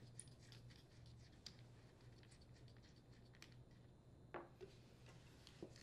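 Near silence: a faint low hum of room tone with a few small, scattered clicks of hands working the plastic handle parts of a leaf blower while the adjustment bolt's safety cap is unthreaded.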